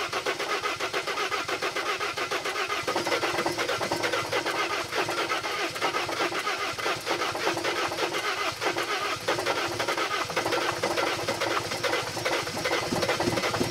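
Dodge Sprinter van's diesel engine cranking on the starter for a long stretch without catching, a steady fast churning. The engine cranks but will not fire because it has lost fuel pressure, with air in the fuel lines.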